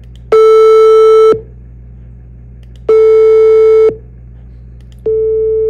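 Three pure sine-wave tones at the same pitch, each about a second long, played one after another with pauses of about a second and a half. Each is quieter than the one before, the third markedly so: the same tone at falling peak amplitude, heard as falling loudness.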